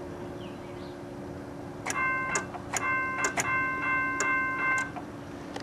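Railroad crossing signal bell ringing for about three seconds, starting about two seconds in, with a sharp strike about twice a second and a steady ring between strikes. It is set off by pulling open the gate-mechanism contact that controls the GPP relay. A steady low hum runs underneath.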